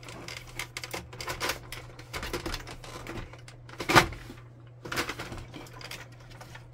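Plastic clips and the side panel of an HP Envy 5055 printer's casing being pried loose and handled: a run of sharp plastic clicks and knocks, the loudest one about four seconds in.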